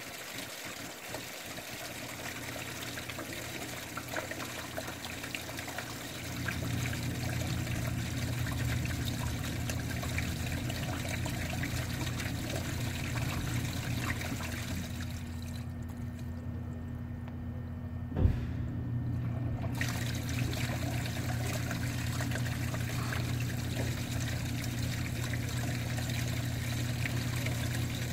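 Water running and trickling through a PVC drain pipe, with a steady low rushing hum that grows louder about six seconds in. A single sharp knock comes about two-thirds of the way through.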